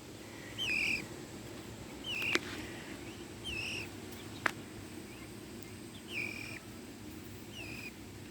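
Young peafowl (peachick) calling: a short rising call repeated about six times, a second or two apart. Two sharp clicks are heard, the louder one about halfway through.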